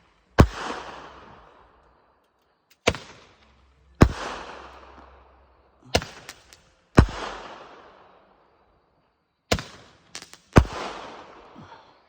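Aerial fireworks going off in sequence, four shots about three seconds apart. Each shot is a sharp launch report followed about a second later by a louder bang that trails off.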